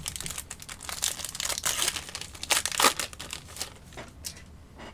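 A wrapper on a pack of baseball cards being torn open and crinkled: a run of crackling, loudest in the middle, that dies away after about four seconds.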